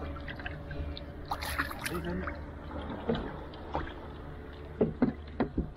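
Water lapping and splashing against a wooden canoe, with a few sharp knocks near the end.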